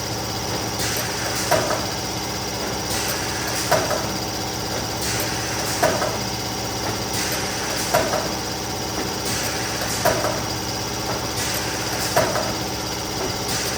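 Neoram 540 hot laminating machine running with a steady motor hum. A short clack comes about every two seconds as each sheet is fed through for hot coating.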